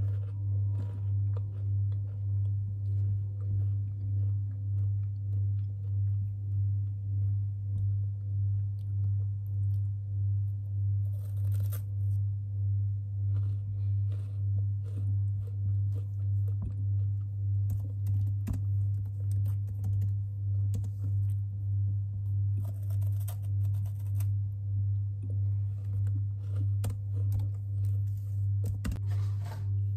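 Soft clicking of typing on a laptop keyboard over a steady low hum that pulses a little faster than once a second. A few short crunching noises come and go, the loudest past the middle.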